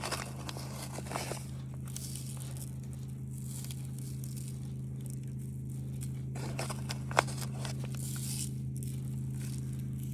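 Rustling, crinkling and scraping handling sounds, with one sharp click about seven seconds in, over a steady low hum.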